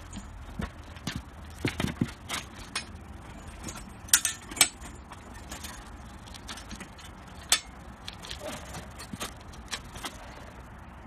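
Scattered sharp clicks and knocks of foundry tools handled at a crucible of molten cast iron, the loudest a couple of seconds in, about four seconds in and near the middle.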